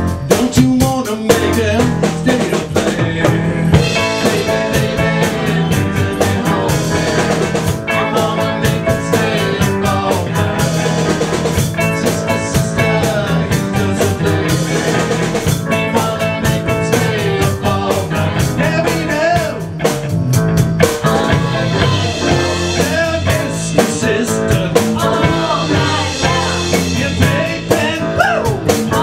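A live band playing with drum kit, electric bass, electric guitar and keyboard, to a steady beat over a repeating bass line.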